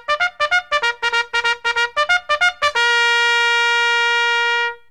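Intro music: a melody of quick short notes, about six a second, then one long held note that cuts off just before the end.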